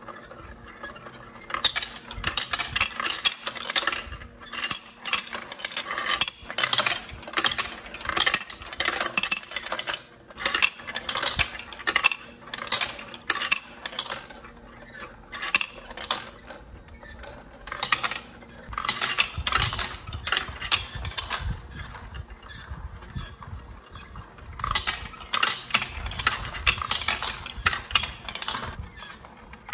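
Plastic marbles rolling and clattering through a plastic building-block marble run: a constant run of clicks and rattles as the balls drop through chutes and knock against the track, with a low rolling rumble at times in the second half as they circle the funnel bowls.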